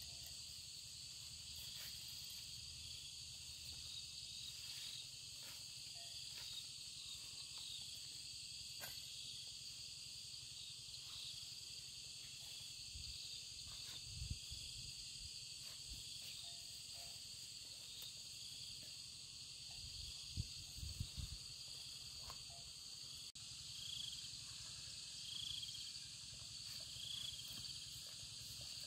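Steady high-pitched chorus of insects, with a repeated short chirp about every second and a half near the end. A few soft low thumps sound in the middle.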